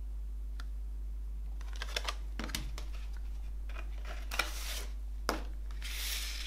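Cardboard and paper handling: a CD booklet being worked out of the pocket of a cardboard digipak, with light rustles, taps and clicks, and a short sliding rustle near the end as it comes free and is laid down on a wooden table.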